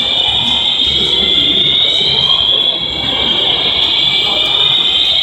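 Mall fire alarm sounders going off continuously: a loud, high-pitched, siren-like tone that drifts slowly in pitch, over a low background murmur.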